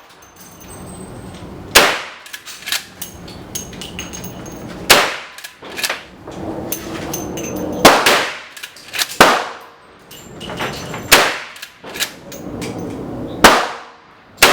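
A Winchester Model 1894 lever-action carbine in .357 Magnum fired offhand, with about six sharp shots spaced a second and a half to three seconds apart. Smaller metallic clicks between the shots are the lever being worked. Each 157-grain full wadcutter round feeds from the tube magazine without a hitch.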